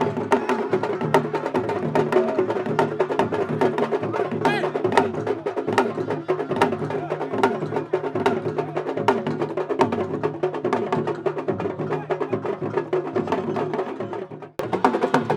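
Fast, dense hand-and-stick drumming in the sabar style of Senegambian wrestling arenas, with sharp cracking strikes over a steady lower beat. It breaks off for a moment near the end and starts again.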